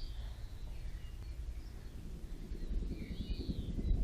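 Quiet outdoor forest ambience: a few faint bird chirps over a low rumble on the microphone that grows heavier about halfway through.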